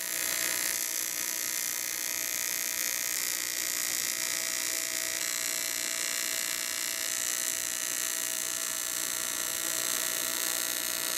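AC TIG welding arc on thin aluminium sheet, run at 60 A with 60 Hz AC output: a steady electric buzz over a hiss.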